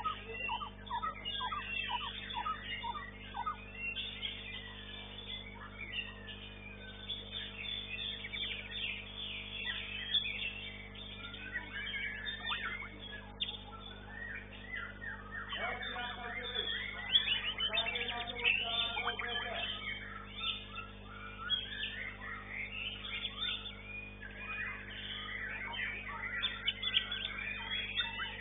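White-rumped shama (murai batu) song: a fast, varied stream of whistles, chirps and trills that keeps going, busiest in the middle and again near the end, over a steady electrical hum.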